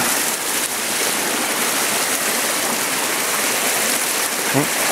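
Stream water rushing steadily, a constant even wash of flowing water.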